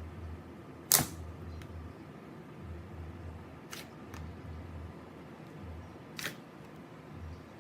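Glossy slime being squeezed and stretched by hand, giving a few sharp clicking pops, the loudest about a second in, over a low hum.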